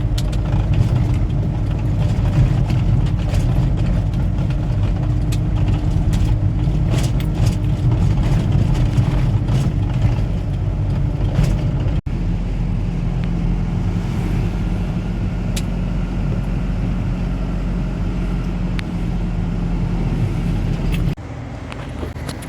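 Steady low rumble of a vehicle on the move, engine and road noise together, with scattered sharp clicks. The sound changes abruptly about halfway through and drops in level near the end.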